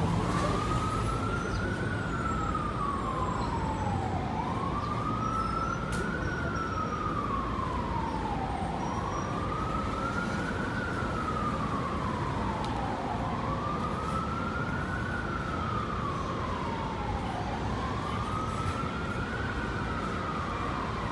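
Emergency vehicle siren sounding a slow wail, its pitch rising over about two seconds and falling over a little more, about five times, over steady city traffic noise.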